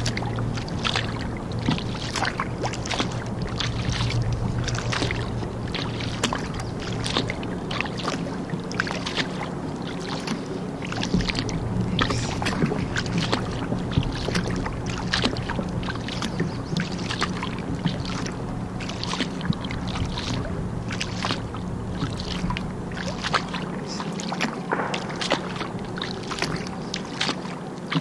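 Kayak paddle strokes dipping and splashing in river water, with drips between strokes, about one or two splashes a second, over a steady low hum that fades near the end.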